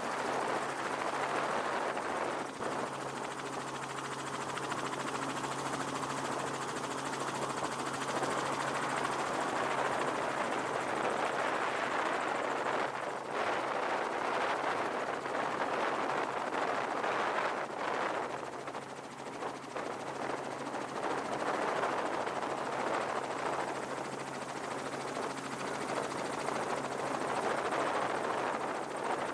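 Helicopter rotor and turbine running steadily, with a rapid chopping beat from the blades, dipping briefly twice.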